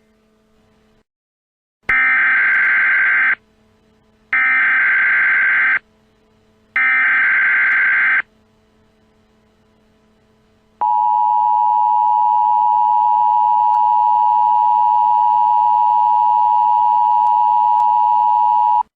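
Emergency Alert System tones: three short screeching bursts of SAME header data, then the steady two-tone EAS attention signal held for about eight seconds. Together they announce an emergency alert about to be read.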